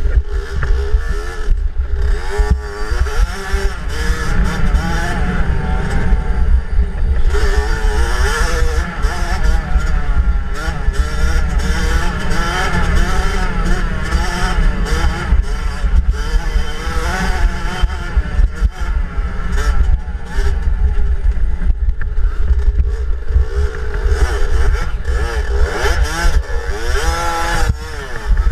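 65cc two-stroke youth dirt bike engine revving up and down as it is ridden hard over a rough trail, with heavy wind rumble and bumps on the helmet-mounted microphone.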